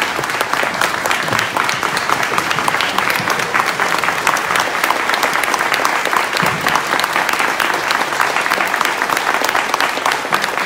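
An audience applauding: many people clapping steadily and densely.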